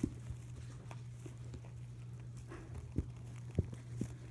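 Soft taps and knocks from animals moving against a plastic tub lined with hay, with two sharper knocks about three seconds in, over a steady low hum.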